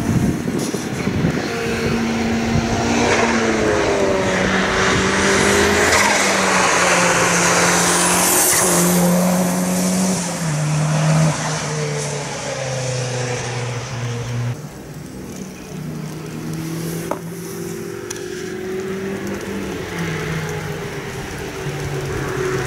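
A car's engine running hard at high revs as it passes on a wet track, its pitch stepping down several times through gear changes, with the hiss of tyres on wet tarmac loudest as it goes by. About two thirds of the way through the sound cuts to a second car's engine, quieter, approaching.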